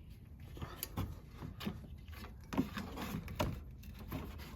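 Faint scattered clicks, knocks and rubbing from hands working at the engine's crank pulley, pulling the cut-off crank pulley belt free.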